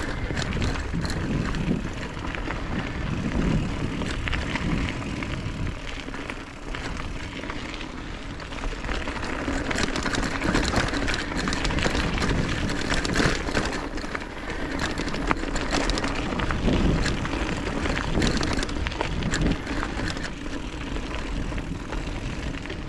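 Mountain bike riding over a loose gravel and dirt track: tyres crunching and rattling over stones, with a steady low rumble of wind on the microphone.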